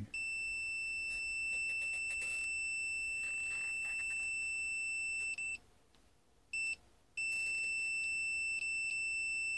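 Multimeter continuity beeper sounding as the probes touch a wirewound potentiometer: one long steady high-pitched beep of about five seconds, a brief blip, then another long beep. Each beep marks a closed path through the pot, and the tone cuts off when the probe loses contact.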